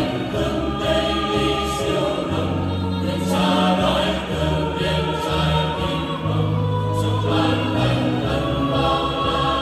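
Mixed choir singing an offertory hymn, accompanied by electronic keyboards that hold long, sustained bass notes under the voices.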